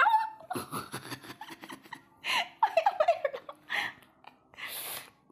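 A person giggling in a run of short, high-pitched notes falling in pitch, with breathy laughs, over rustling and scratching against fabric.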